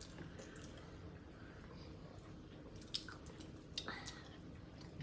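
Faint eating sounds: chewing, and snow crab legs being picked apart by hand, with two sharp clicks about three and four seconds in.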